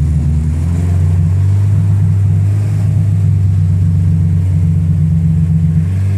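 Acura RSX Type-S K20 four-cylinder engine running at a steady held speed while being treated with Seafoam, rather than knocking a rod as the title jokes.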